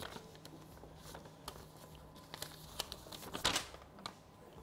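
A sheet of paper rustling and crinkling as a folded letter is handled and opened out, in small faint rustles with one louder rustle about three and a half seconds in.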